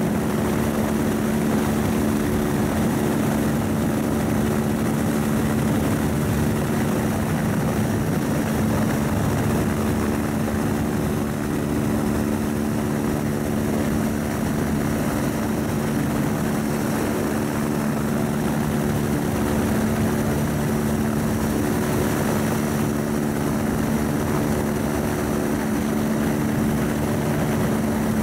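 Helicopter hovering, a steady, unbroken rotor and engine noise with a constant low hum, heard from on board.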